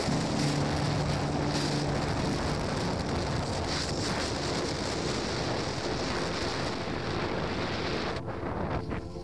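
Wind rushing over the microphone: a steady roar of noise that breaks off about eight seconds in. A steady low hum runs through the first two seconds.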